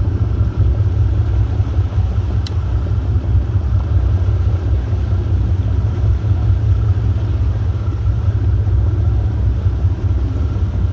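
Boat engine running with a steady low rumble. A faint click about two and a half seconds in.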